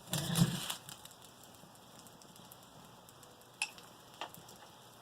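A ferro rod struck once with a ceramic striker: a short scraping rasp in the first second, then two light clicks later on. The sparks have not yet lit the cotton fire wick.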